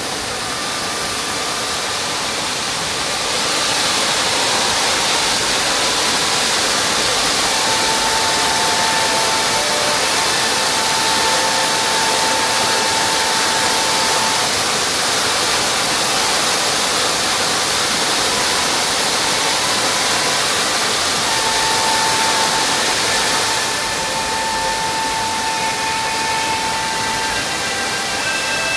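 Hataoribuchi waterfall rushing steadily into its plunge pool, a constant wash of falling water. It grows louder about four seconds in and eases back a little near the end.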